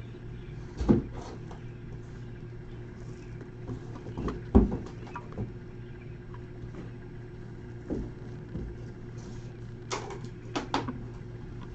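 Sealed cardboard hobby boxes of trading cards being handled and moved about on a table: scattered light knocks and rustles, the loudest about four and a half seconds in and a small cluster near the end, over a steady low hum.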